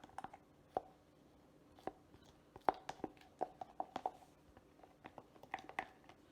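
A spoon stirring thick brownie batter in a mug, clinking irregularly against the mug's sides, each clink ringing briefly.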